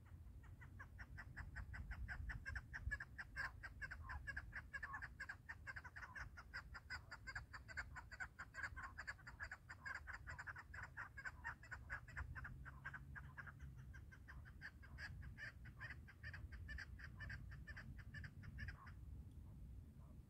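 Chukar partridge calling: a long, fast run of repeated clucking notes that keeps going for about eighteen seconds and stops near the end.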